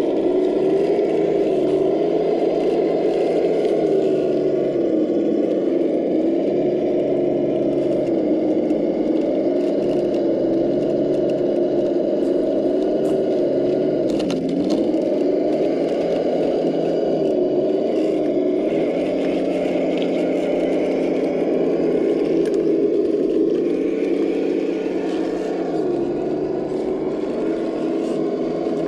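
Traxxas TRX-4 Defender RC crawler's electric motor and gearbox whining as it crawls over roots and rocks, the pitch rising and falling with the throttle and dipping sharply about halfway. It gets a little quieter near the end as the truck moves away.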